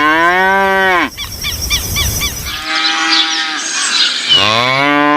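Cow mooing, two long low moos, one ending about a second in and another starting about four seconds in, with a noisier stretch of chirping between them.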